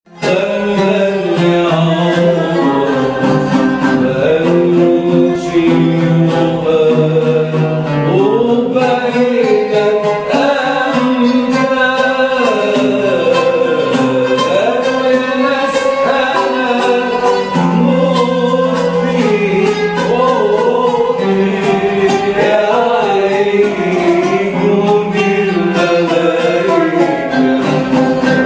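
Arabic ensemble music: an oud and a qanun plucking the melody together with a bowed violin, the line bending and sliding between notes, with no pause.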